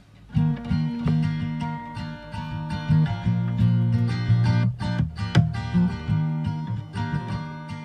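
Background music: a guitar-led song that starts abruptly about half a second in and carries on at a steady level.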